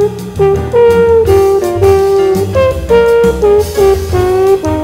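Jazz background music with a saxophone playing the melody over drums and bass.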